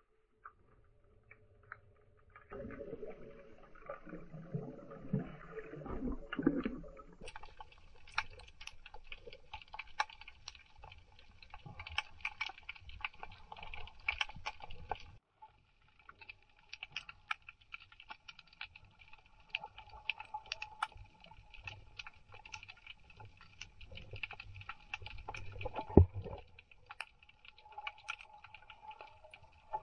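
Underwater sound picked up by a submerged camera: a steady crackle of tiny clicks, with low rumbling water noise at times and one sharp knock near the end.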